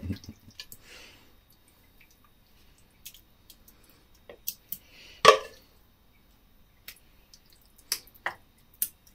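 Wooden spoon tapping and scraping against a stainless steel saucepan and ceramic dishes as thick stew is spooned out: scattered light clicks and soft wet dollops, with one firmer knock about five seconds in.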